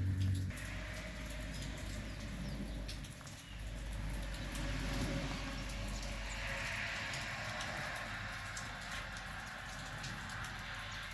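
Rain falling steadily, with many individual drops pattering and ticking close by over a low rumble. A loud low hum cuts off about half a second in.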